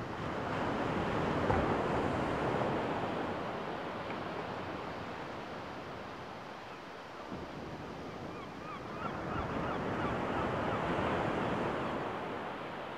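Small sea waves breaking and washing up a sandy shore, the surf swelling twice. A few faint bird calls come about two-thirds of the way in.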